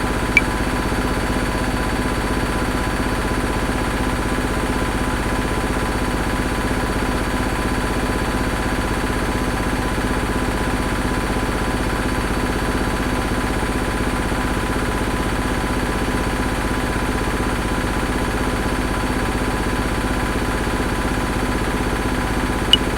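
Washing machine running steadily: a continuous mechanical hum with a fast, even pulse. One sharp metronome click comes just after the start, then no more clicks.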